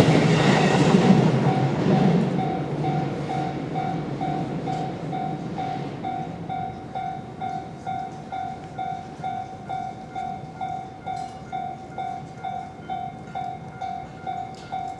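Japanese level-crossing warning bell ringing its repeated "kan-kan" about twice a second while a train passes through the crossing, the train loud for the first two seconds and then fading away.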